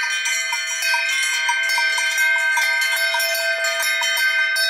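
Cowbells on a herd of grazing cattle ringing together: overlapping clangs about four times a second over a steady ringing of several bell tones.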